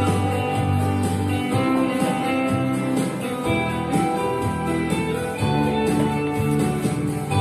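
Music: a Christmas song with plucked, guitar-like accompaniment over long, steady bass notes.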